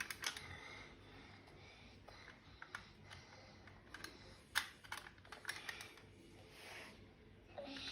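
Faint, scattered small clicks and taps at irregular intervals, with one sharper click about four and a half seconds in.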